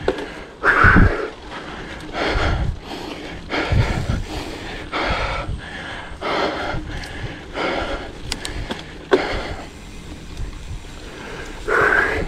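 Mountain biker's heavy, laboured breathing, a loud breath about every second and a half, from the effort of a hard climb: he is out of breath.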